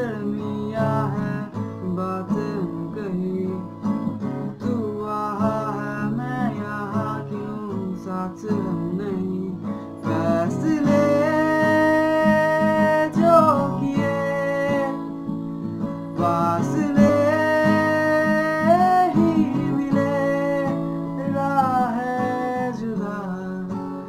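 A man singing a Hindi ballad to his own strummed acoustic guitar. His voice climbs to long held notes about ten seconds in and again a few seconds later, over a steady guitar accompaniment.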